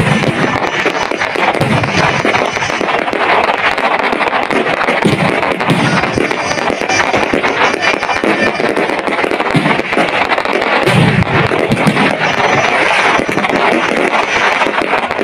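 Aerial fireworks display: shells bursting overhead in dense, unbroken crackling and popping, with an occasional low boom.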